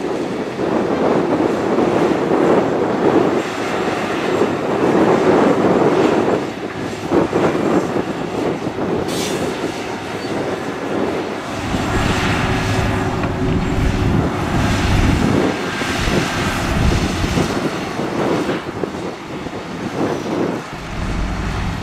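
Wheel loader's diesel engine running as its bucket pushes a load of rock and dirt, with stones scraping and tumbling. From about halfway, a loaded dump truck's diesel engine running with a deep low rumble as the truck drives.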